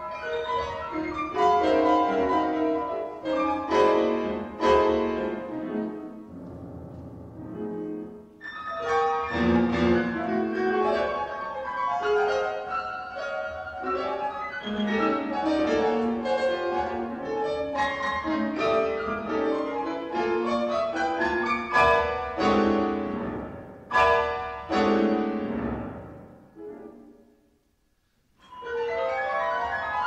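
Solo piano with a small conducted chamber ensemble playing modern classical music in dense runs and chords. The playing stops briefly near the end, then starts again.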